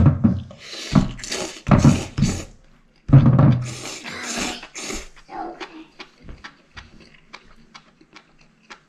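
A person slurping spicy seafood ramen noodles loudly in several long pulls, then chewing with a quick run of wet smacking clicks.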